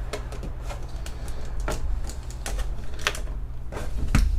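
Pokémon trading cards being handled and flipped through, giving a few sharp, irregular clicks of card against card over a steady low hum.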